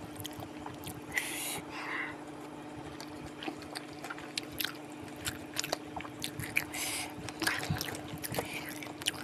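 Close-up eating sounds of a spicy fried flat-noodle and wonton dish: biting and chewing with many scattered small mouth clicks and a few short, louder bursts.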